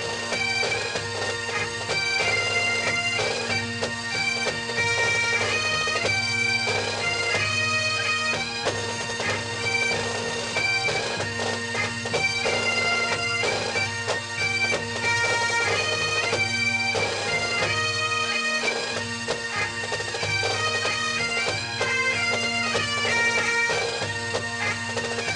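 Bagpipe music: a chanter melody played over steady drones.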